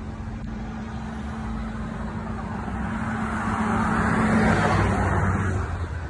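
A motor vehicle running nearby, passing by: a low engine hum with tyre-and-road noise that swells to its loudest about four seconds in, then eases off.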